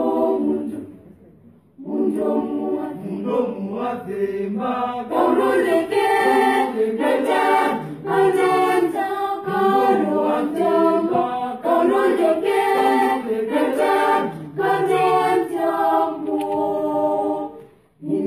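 A small girls' choir singing a cappella with held notes. The singing pauses briefly about a second in and stops near the end.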